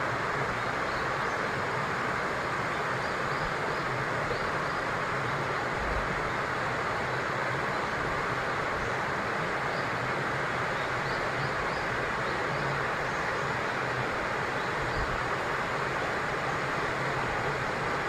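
Steady rush of running stream water, with a few faint, short high chirps now and then.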